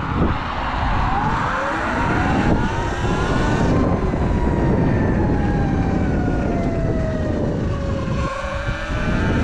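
Surron Light Bee X electric dirt bike's motor whining while riding. The pitch rises over the first few seconds as the bike speeds up, falls slowly as it eases off, then rises again near the end, over a steady rush of noise.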